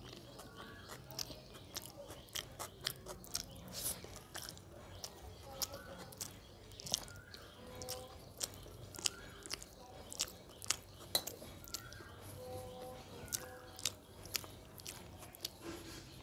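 A person chewing a mouthful of rice with many irregular wet smacking clicks, while fingers mix rice on a steel plate.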